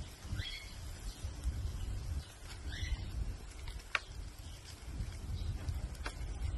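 Short bird calls, twice: about half a second in and again near three seconds. They sit over a steady low rumble, with a single sharp click about four seconds in.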